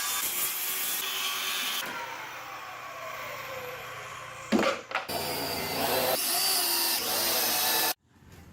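Power tool working 2x4 lumber: a loud run, then a falling whine as it winds down, a sharp burst, and a second loud run that stops abruptly near the end.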